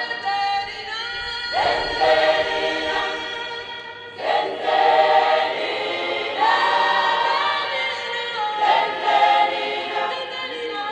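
Background music: a choir singing long, slow held notes, a cappella or nearly so.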